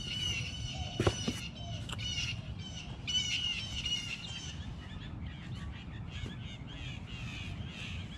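Songbirds chirping in quick, repeated calls, coming faster and denser in the second half, over a low steady background rumble. A couple of sharp clicks about a second in.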